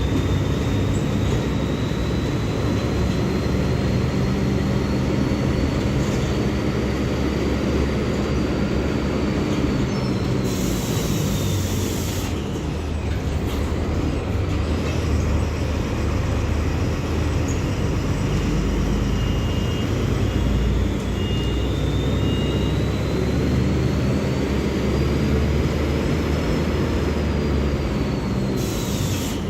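Mercedes-Benz OF-1724L bus engine running steadily under way, with a whine that slowly rises and falls in pitch as the bus gathers speed and eases off. There is a short hiss of air about eleven seconds in and again near the end.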